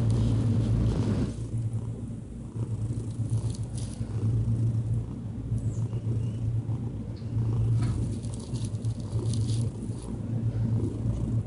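Tabby cat purring: a low, steady purr that swells and eases in a slow rhythm every couple of seconds as it breathes in and out.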